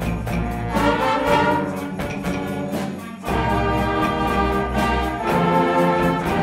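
School concert band of brass, woodwinds and percussion playing held chords over a steady beat of high percussion strokes; the low bass notes drop out briefly about three seconds in, then return.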